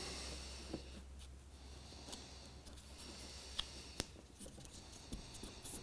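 Faint handling sounds of a model railway point being pressed into place on foam track bed: scattered small clicks and light taps, the sharpest about four seconds in.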